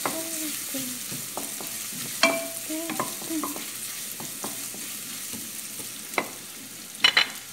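Carrot strips and garlic sizzling in hot oil in a wok while a slotted spatula stirs and scrapes them, with short pitched scrapes and a few sharp knocks of the spatula against the pan, the loudest about two seconds in and just before the end.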